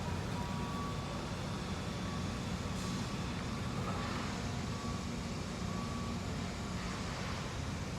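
Heavy diesel construction machinery, a dump truck and excavator, running with a steady low rumble, with a few faint beeps now and then, typical of a reversing alarm.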